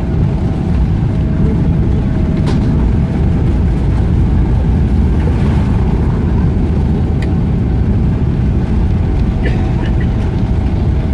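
Loud, steady low rumble of a Boeing 777-300ER's engines and landing gear heard inside the passenger cabin as the airliner rolls down the runway after touchdown, with a few short clicks and rattles.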